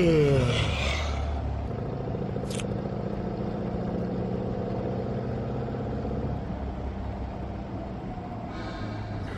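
A man's long yawn, falling in pitch and ending about half a second in, then the steady hum of a vehicle engine heard from inside the cabin, with one brief high-pitched sound about two and a half seconds in.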